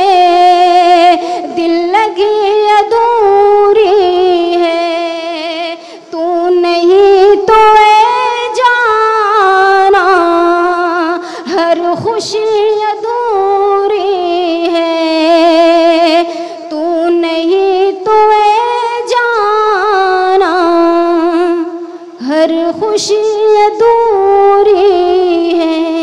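A woman singing a ghazal verse in tarannum, the sung recitation style of a mushaira, with no accompaniment: long drawn-out notes with vibrato, broken by a few short pauses for breath.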